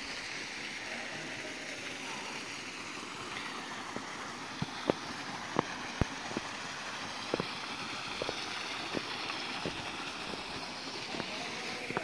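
Steady rush of a small waterfall spilling over rock ledges into a pool. From about four seconds in, a string of sharp, irregular taps cuts through it.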